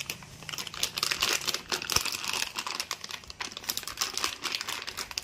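Plastic anti-static bag crinkling and crackling as hands work a graphics card out of it, with a sharp tick about two seconds in.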